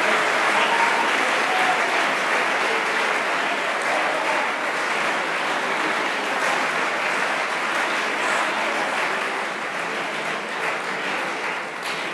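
An audience applauding, a steady clapping that slowly fades toward the end.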